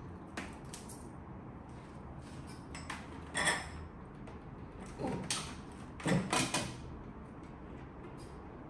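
Handling noises as a helmet and chin-mount parts are worked on at a table: scattered scrapes, rustles and short knocks, the loudest about three and a half seconds in and a cluster around six seconds, over a low steady hum.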